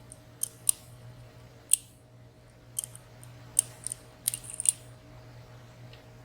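Scattered sharp metallic clicks of lock picks working the sliders and pins inside a WSW W10 high-security padlock, about ten clicks in irregular clusters, the last bunch just over four seconds in.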